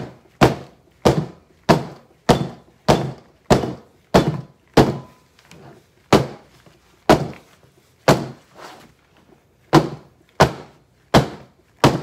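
A wooden loaf soap mold full of thick cold-process soap batter being banged down on a tabletop over and over. Loud thuds come about every half-second, with a brief lull and a few softer knocks midway. The banging knocks air bubbles out of the thickened soap.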